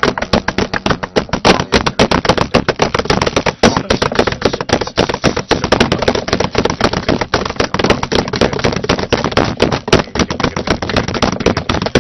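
Rapid, dense run of sharp percussive clicks and knocks, many a second without a break, in a percussion passage of the track.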